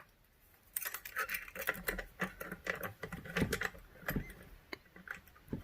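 Irregular small metallic clicks and scrapes of lock-picking tools being worked in a Chubb 5-lever mortice lock, starting under a second in.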